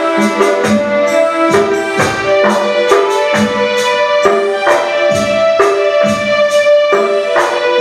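Instrumental music with no voice: held melody notes over a steady percussion beat that strikes a little more than once a second.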